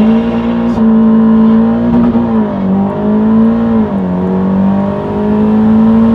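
Turbocharged Audi TT engine heard from inside the cabin, running hard at high revs: its pitch holds high, dips slightly about two and a half and four seconds in, then climbs slowly again.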